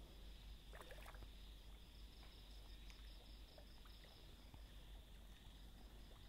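Near silence: faint steady chirring of evening insects, with a quick pulsing chirp over it. A brief soft rustle comes about a second in.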